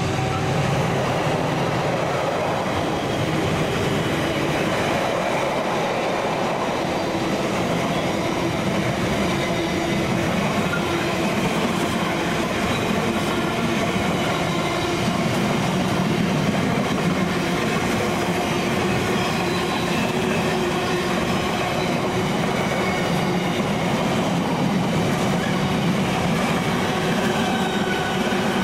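Container wagons of a freight train rolling steadily past on the main line.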